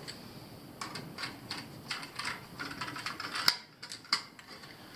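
Irregular small clicks and taps from working wires into a Honeywell zone valve's terminal connections, a few a second, with a sharper click about three and a half seconds in.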